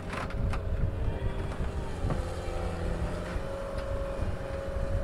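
Excavator engine running with a steady hydraulic whine as its bucket works through broken lumber and metal roofing, with a few sharp cracks and knocks of the debris shifting.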